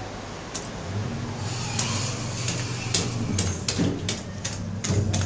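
Elevator car running: a steady low hum comes in about a second in and fades out after about three and a half seconds, with scattered sharp clicks and knocks.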